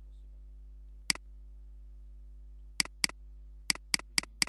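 Computer mouse button clicking: one click, then a pair, then four quick clicks about four a second near the end, over a faint steady electrical hum.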